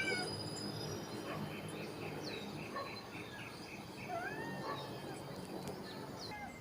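Faint bird chirps and calls, with a quick run of even chirps about two seconds in and a few short rising calls later.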